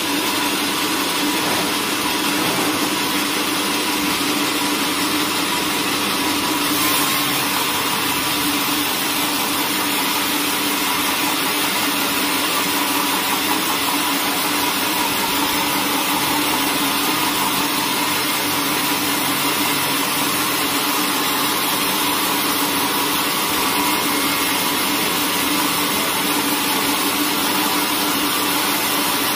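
Band sawmill running, its band blade sawing lengthwise through a large timber: a steady machine hum under the constant hiss of the cut.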